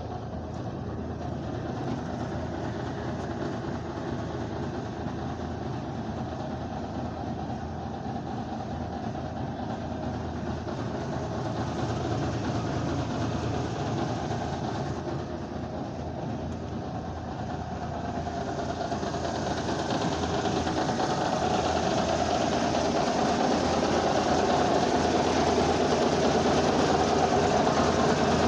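Ford LT9000 heavy truck's diesel engine idling steadily after a cold start, growing louder about two-thirds of the way through.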